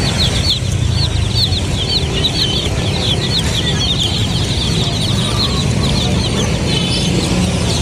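A flock of domestic chicks peeping continuously, many short high cheeps overlapping one another, over a steady low rumble.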